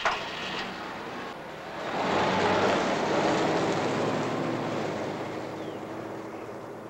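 Sedan driving off along a road. Its engine and tyre noise swells about two seconds in, then fades as the car moves away.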